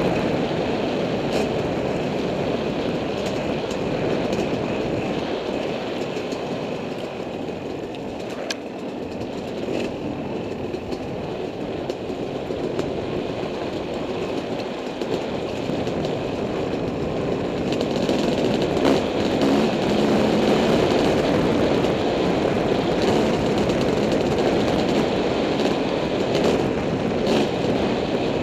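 Dirt bike engine running as it is ridden along a rough forest trail, with a few sharp knocks from the bike over the ground. The engine eases off somewhat about a third of the way in and pulls harder again from about two-thirds in.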